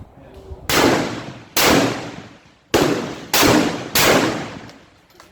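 Five centrefire rifle shots in quick succession, each a sharp crack that dies away in a long echo. Some come barely half a second apart, too close for one bolt-action rifle, so they are from more than one rifle.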